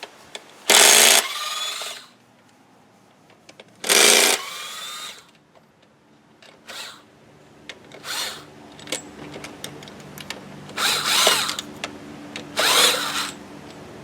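Cordless power driver spinning out the throttle body's 10mm bolts in four short bursts, its motor whine rising as it spins up.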